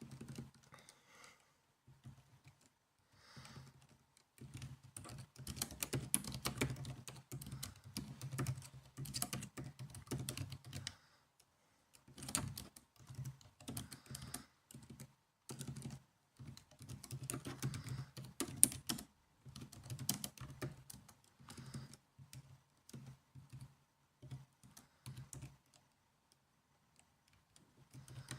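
Typing on a laptop keyboard: quick runs of soft key clicks broken by short pauses, with the loudest, densest stretches between about five and eleven seconds in and again around seventeen to nineteen seconds.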